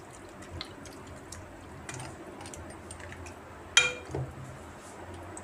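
Steel spoon stirring raw chicken pieces in an aluminium saucepan, with light scattered taps and one sharp, briefly ringing clink of metal on metal a little under four seconds in.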